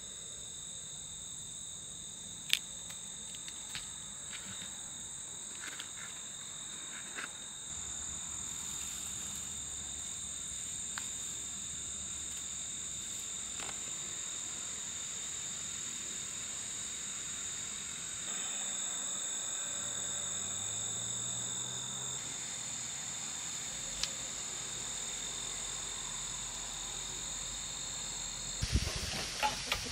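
Crickets chirring in a steady, high-pitched chorus, shifting slightly in pitch and level a few times, with a few faint clicks and rustles. Near the end, a burst of louder knocks and rustles comes in.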